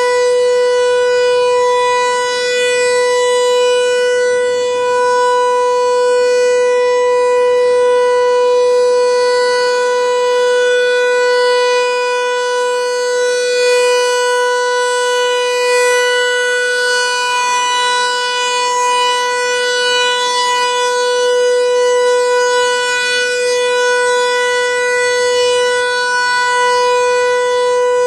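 American Signal T-128 outdoor warning siren sounding its Alert signal during a scheduled test: one loud, unbroken steady tone that swells and eases a little in loudness every few seconds.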